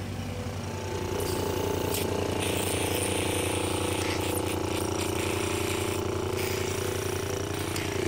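Small electric mixing wand, a handheld frother, whirring in a cup of liquid: a steady, rapidly pulsing motor buzz that grows louder about a second in.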